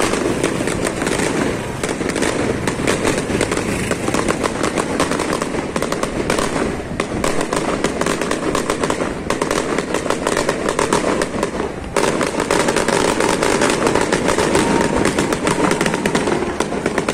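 Aerial fireworks bursting overhead in a continuous rapid crackle of pops, easing briefly a few times. Under them is the noise of jammed street traffic with motorcycles.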